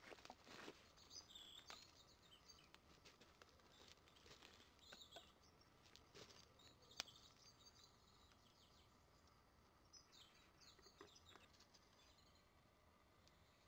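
Faint small birds chirping on and off, with sparse quiet crackles and pops from a wood fire burning in an open fire pit, and one sharper snap about halfway through.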